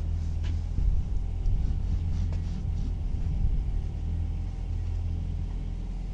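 Steady low rumble of a running motor, with a few faint clicks.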